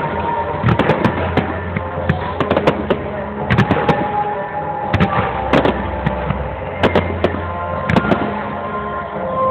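Aerial fireworks display: an irregular string of sharp bangs from shells and comets bursting, a dozen or more, over a low rumble.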